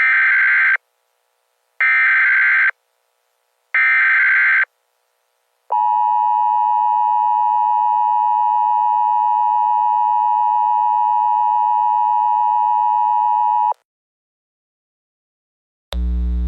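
Emergency Alert System header: three short bursts of digital data tones about two seconds apart, then a steady attention tone lasting about eight seconds that cuts off abruptly. A low hum begins near the end.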